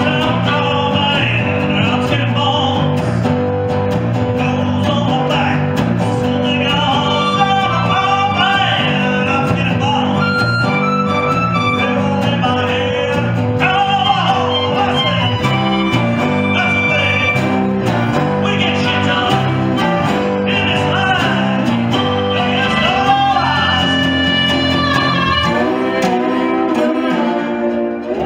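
Live blues band playing: a resonator guitar and electric bass with harmonica wailing over them and a sung lead vocal.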